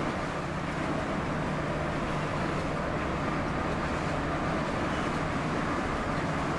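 Intercity coach cruising at highway speed, heard from inside the front of the cabin: a steady engine hum under even road and tyre noise.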